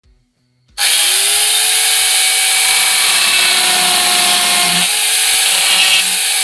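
High-speed electric power tool running flat out, with a steady motor whine over a dense cutting noise. It starts suddenly about a second in, the whine rising quickly to speed, and the pitch starts to sag right at the end.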